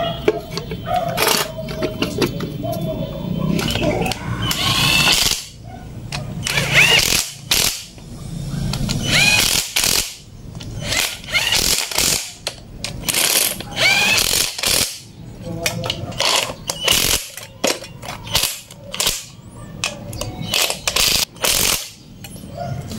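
Cordless impact wrench running bolts into the crankcase cover of a 5 hp gasoline engine, hammering in repeated short bursts with pauses between them.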